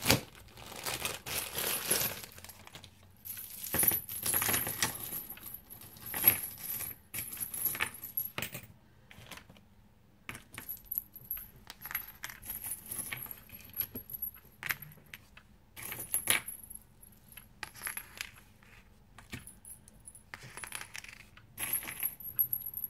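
Metal key rings and resin keychain pendants clinking and jingling as they are set down one by one on paper: irregular clusters of light metallic chinks with short quiet gaps between.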